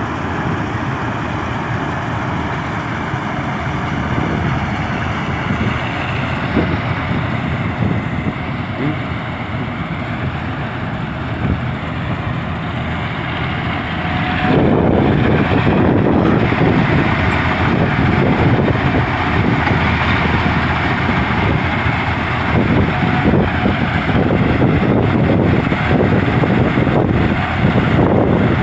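Combine harvester running with a steady mechanical din, growing louder about halfway through.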